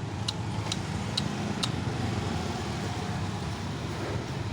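A steady low rumble like a running engine or motor, with a few short, high clicks in the first two seconds.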